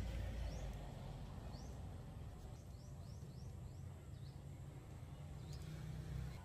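A bird calling outdoors: short, high chirps that sweep downward, about ten of them at irregular intervals, over a steady low rumble.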